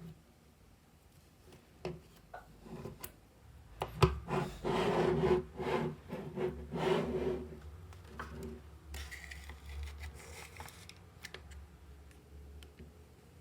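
Small magnetic balls being handled. Scattered sharp clicks, with a loud snap about four seconds in, then several seconds of rubbing and rasping as the balls roll and scrape against each other, followed by a fainter hiss.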